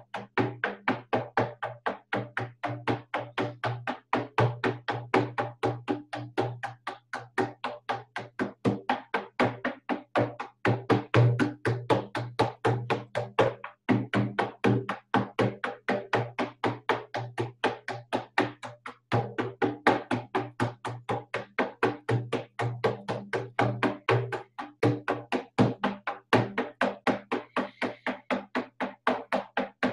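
Hide frame drum struck with a padded beater in a steady, fast beat of about four to five strokes a second, the monotone pulse of a shamanic journey drumming. The beat breaks off twice for a moment, about halfway through and a few seconds later.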